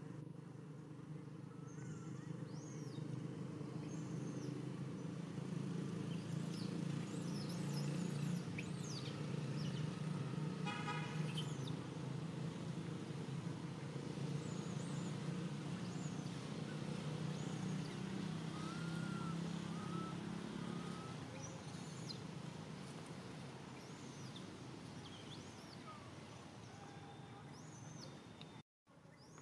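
A steady low engine-like drone that dies away after about twenty seconds, with small chirps throughout and a brief horn-like toot about eleven seconds in.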